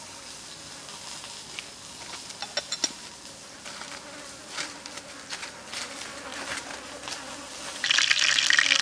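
Insects buzzing, with scattered small ticks and crackles. About eight seconds in, loud sizzling starts as a chicken head fries in oil in a pan.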